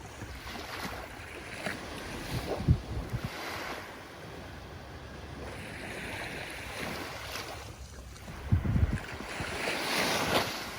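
Ocean waves breaking and washing ashore, the surf swelling twice, with wind buffeting the microphone in low thuds.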